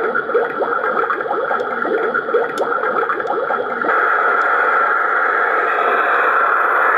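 Spooky sound effect played through the small built-in speaker of a Halloween sound-effect flashlight. It starts with a quick run of short chirping pitch glides, then about four seconds in changes to a steady buzzing hiss.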